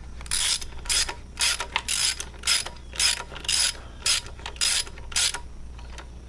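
Hand ratchet wrench turning a bolt, in quick back-and-forth strokes of clicking, about two a second, stopping near the end.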